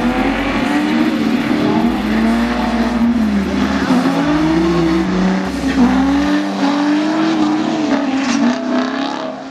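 Car engine revving up and down repeatedly as a car drifts, its pitch rising and falling every second or so.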